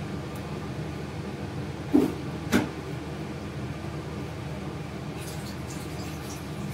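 A steel ladle knocks twice, sharply and briefly, as batter is scooped and poured onto the pan, over a steady low kitchen hum.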